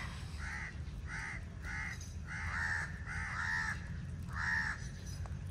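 Crows cawing, about seven short harsh caws in quick succession.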